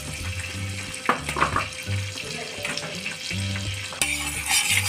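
Butter and oil sizzling in a frying pan, with a couple of sharp clicks about a second in. Near the end a steel spatula is pushed into the pan and the sizzling gets suddenly louder and busier.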